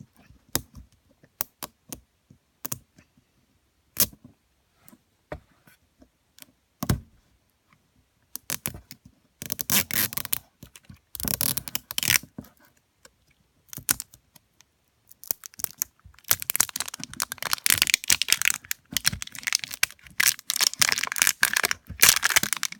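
Wrapping of an L.O.L. Surprise toy ball being unwrapped by hand: scattered small clicks and crackles at first, then long spells of crinkling and tearing from about eight seconds in.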